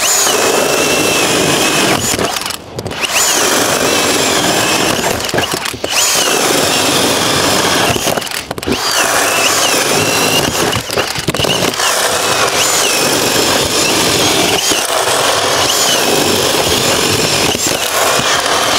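Two Hilti Nuron cordless drills running together, boring 32 mm holes through four stacked sheets of plywood. Their motor whine sags and recovers as the bits bite, with a few short breaks between holes.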